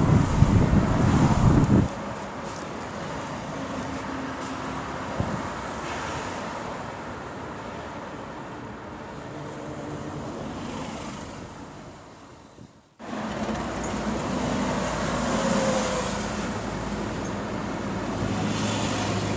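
Wind buffeting the microphone at first, then a steady engine-like rumble with a faint hum. The sound drops out abruptly about thirteen seconds in and comes back.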